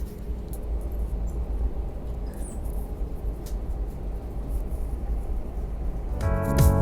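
Steady low rumble with a faint hiss, the running noise of a vehicle. Keyboard music starts about six seconds in.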